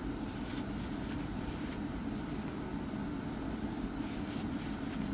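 Steady low background hum, with faint soft rustles and ticks as yarn is drawn through crochet stitches with a hook.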